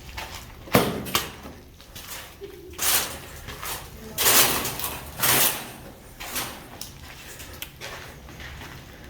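Irregular knocks and scrapes: a sharp knock just under a second in, then longer scraping noises around the middle, fading to smaller knocks near the end.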